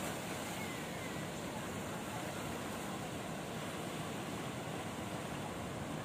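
Sea waves washing in over a rocky, coral-rubble shore: a steady wash of surf with no single breaking crash standing out.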